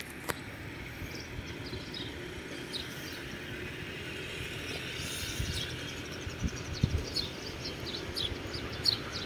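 Open-air ambience: a steady low background noise with small birds chirping in short, high, falling notes, more often in the second half. A few dull thumps come near the middle.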